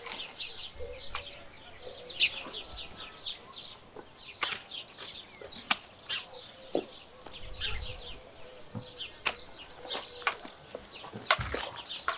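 Hand pruning shears snipping branches of a flat peach tree: about five sharp cuts a few seconds apart. Small birds chirp busily throughout.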